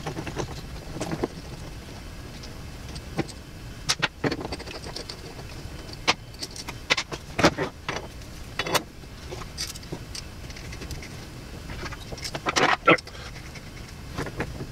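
Metal clinks and knocks of a bearing puller's arms, bolts and crossbar being handled and fitted onto an electric motor's armature shaft, in scattered sharp taps. The loudest come a little past the middle and again near the end.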